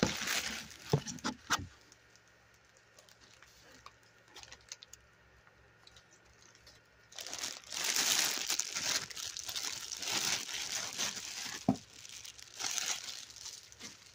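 Doll packaging crinkling and rustling as it is handled, with a few sharp clicks in the first two seconds and a longer stretch of steady crinkling from about halfway through.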